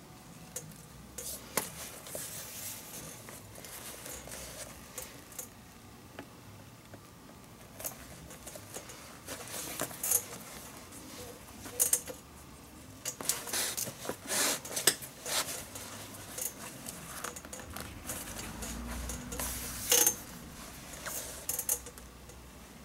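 Leather lace drawn through the lace holes of a Rawlings baseball glove with a lacing needle: irregular rustles, scrapes and light clicks of needle and leather, with a few sharper hissing pulls on the lace.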